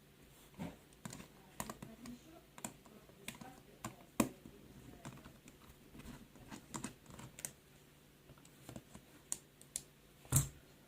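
Faint, irregular light clicks and taps of a small Phillips screwdriver and tiny screws being worked out of a tablet's speaker housing and motherboard, with a louder knock near the end.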